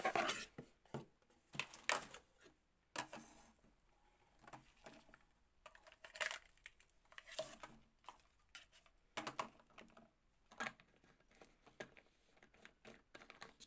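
Light clicks and knocks of small plastic bathroom pieces (a soap dispenser, tumbler and tray) being handled and set down on a table, with some cardboard box rustling. Near the end the black pump head is fitted onto the soap dispenser.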